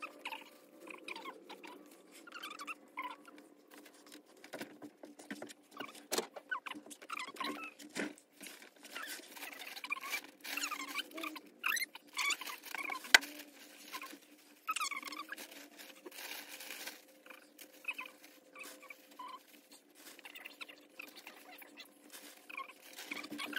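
Fast-forwarded handling of a plush toy being stuffed with fiberfill: fabric and stuffing rustling with quick high-pitched squeaky chirps, the sped-up sound of the work, over a faint steady hum. A single sharp click about halfway through.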